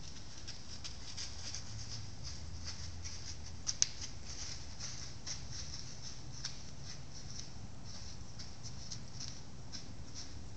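Soft, irregular crackling and rustling, with two sharper clicks a little under four seconds in, over a low rumble.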